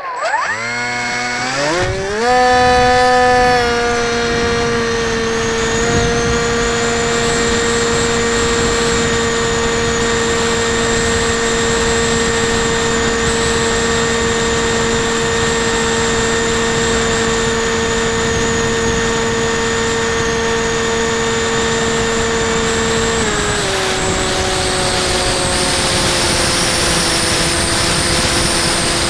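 Bixler 2 foam RC plane's electric motor and pusher propeller spinning up over the first few seconds into a steady high whine, heard from the onboard camera with wind noise underneath. About 23 seconds in the whine steps down a little in pitch and holds there.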